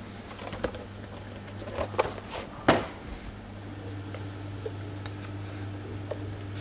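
A few light knocks and clinks of kitchen utensils against a steel saucepan and bowl, the sharpest a little before halfway, over a steady low hum of kitchen equipment; a faint steady tone joins the hum about halfway.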